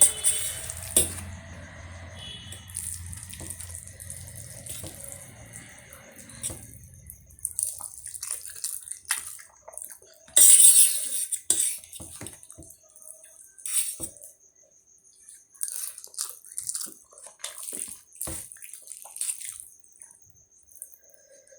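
A person eating spicy Maggi instant noodles close to the microphone, slurping and chewing in short, irregular bursts, with one loud slurp about ten seconds in.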